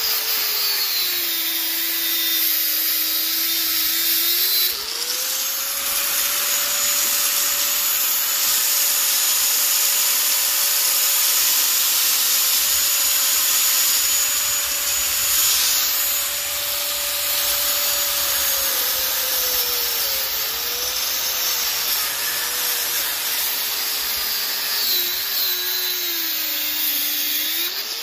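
Corded angle grinder cutting into an air-conditioner radiator coil, running steadily with a hissing grind. Its motor whine drops in pitch when the disc bites in, near the start and again near the end, and rises back when the disc eases off.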